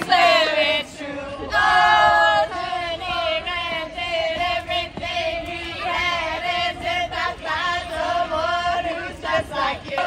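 A group of voices singing together: several high voices over a note that is held throughout.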